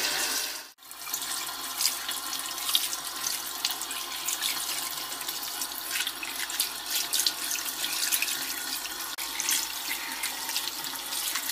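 Cold tap water running into a sink, splashing over salted pike and perch as they are rinsed by hand under the stream. The sound drops out briefly just under a second in, then runs on steadily with small irregular splashes.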